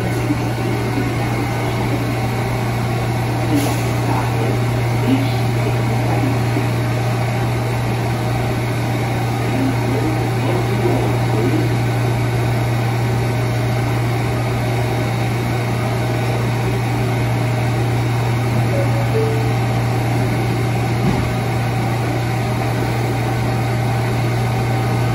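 Bombardier R179 subway car humming steadily: a low, level drone with a few faint steady tones above it, the pitch neither rising nor falling.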